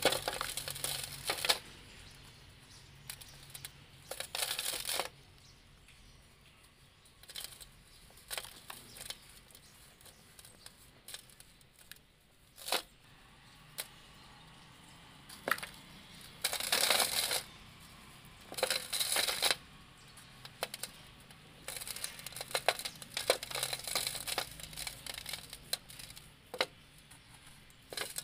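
Dry molded sand-cement chunks crushed and crumbled in the hands, giving gritty crunches and crackles in irregular bursts with sharp little clicks. Between the bursts are quieter stretches, and near the end dry powder trickles through the fingers.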